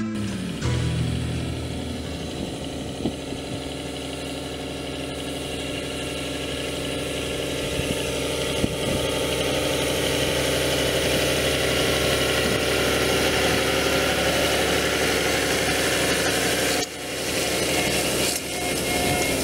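Fiat DT 110-90 tractor's six-cylinder diesel engine running steadily under load while pulling a Claas Liner 470 S rotary rake through hay, growing slowly louder, with a sudden drop in level about three seconds before the end.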